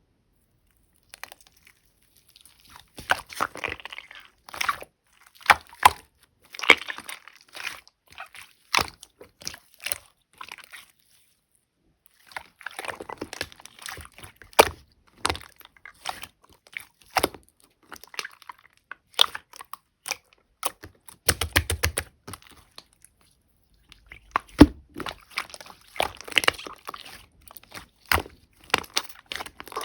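Pastel slime being pressed, stretched and folded by hand: clusters of sharp, sticky pops and wet crackles with short quiet gaps between them, and a quick run of small pops about two-thirds of the way through.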